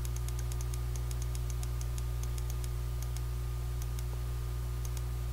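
Computer mouse clicking lightly and irregularly, stepping through radar frames, over a steady low electrical hum.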